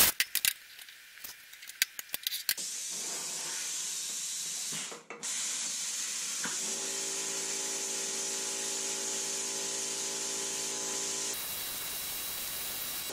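Hypertherm Powermax 45 XP plasma cutter cutting steel plate: a steady hiss of air and arc, with a brief dip about five seconds in. Partway through, a steady hum joins the hiss and then drops out again near the end. A few knocks and clicks are heard in the first couple of seconds, before the cutting starts.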